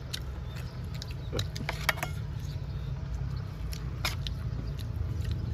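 Scattered small clicks and taps of eating by hand, with a metal spoon working in a small steel sauce cup, over a steady low rumble.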